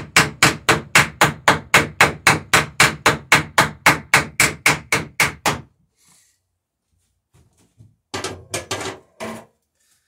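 Hammer rapidly peening a copper rivet in the wooden planking of a lapstrake dory, about four or five even blows a second, stopping a little past halfway. A few scattered knocks follow near the end.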